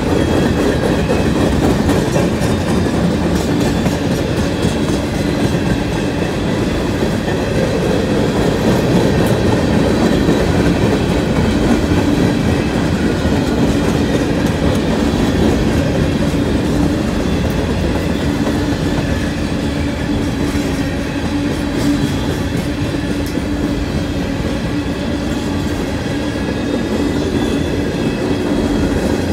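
CSX grain train of covered hopper cars rolling past: a loud, steady rumble of steel wheels on rail, with a faint steady tone running through it.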